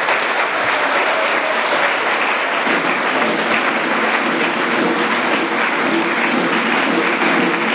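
A large crowd applauding steadily, a dense even clatter of many hands clapping.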